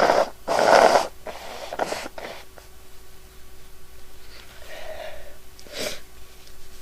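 A woman blowing her nose, which is stuffed up from repeated sneezing. There is a short blow right at the start, then a longer, louder one straight after, a weaker one about two seconds in, and a couple of softer puffs near the end.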